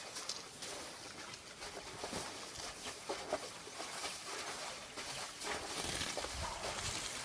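Elephants shifting in shallow muddy water: scattered faint splashes and squelches over quiet outdoor ambience.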